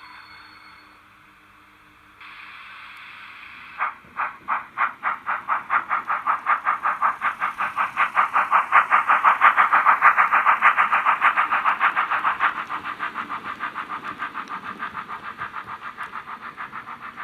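Model steam locomotive sound decoder (Henning Sound V5 project for a BR 50 Reco) playing through the model's original small loudspeakers. A steady steam hiss comes in about two seconds in. Exhaust chuffs then start and quicken as the engine pulls away, growing loudest about halfway through and then easing off as it runs on.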